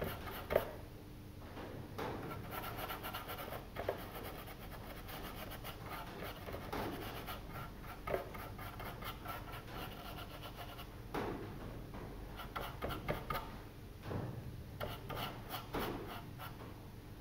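Small paintbrush scrubbing gritty, sand-textured wall paint onto a wooden surface: faint, irregular rubbing strokes with a few light taps and clicks in between.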